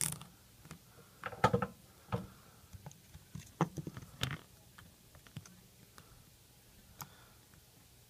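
Scattered light clicks and taps of tools and fingers handling a small circuit board on a wooden table, with a quick cluster of them about a second and a half in.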